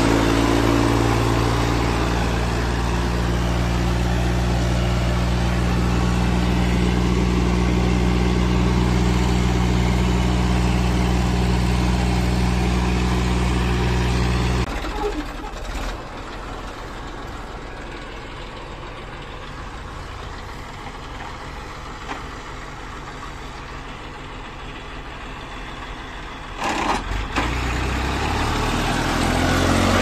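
Tractor diesel engine running steadily while coupled by a shaft to a brick-making machine's gearbox. About halfway through, the steady engine hum drops away suddenly, leaving a quieter, rougher rumble, and a stronger engine sound picks up again near the end.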